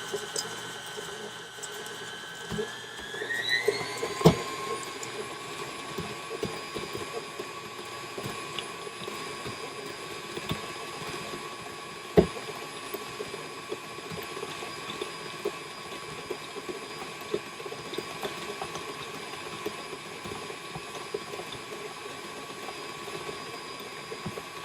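KitchenAid stand mixer running with the flat paddle, creaming softened butter with white and brown sugar: a steady motor whine that rises in pitch about three seconds in as the speed is turned up, then holds. Occasional knocks from the paddle and bowl, two of them sharp.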